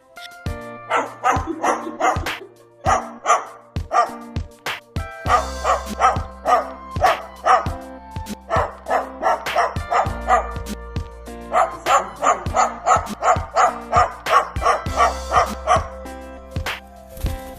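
Runs of short, quick barks, several a second, over background music with a steady beat.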